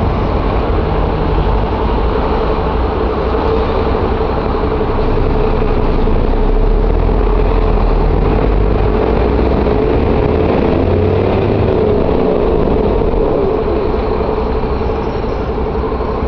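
Mercedes-Benz O-500M bus engine running steadily with a constant hum and low rumble, getting a little louder partway through and easing off near the end.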